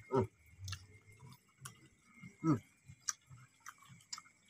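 A person chewing crunchy fried fish close to the microphone: irregular small crunches and mouth clicks, with two short falling hums, one right at the start and one about two and a half seconds in. A faint steady high whine sits underneath.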